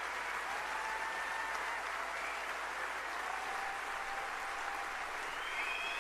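Steady hiss of drilling-rig machinery, with a few faint, drawn-out squeals that rise and fall in pitch, such as steel makes when it rubs on steel.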